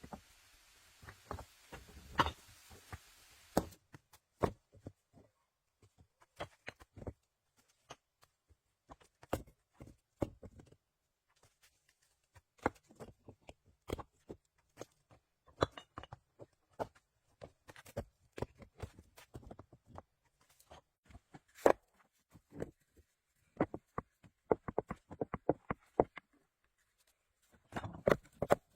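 Scattered sharp knocks and clicks at an irregular pace, from hand work with wood or stone.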